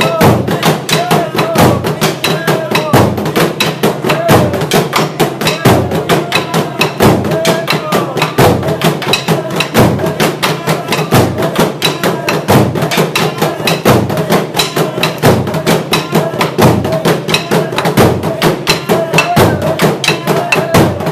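Traditional Burundian drums beaten with wooden sticks in a loud, fast, steady rhythm, with a heavier accented stroke about every second and a half. Voices call out over the drumming.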